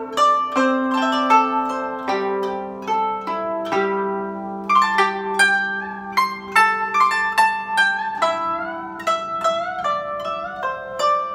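Guzheng played solo: a melody of plucked notes over sustained lower ringing tones, with some notes wavering and bending in pitch.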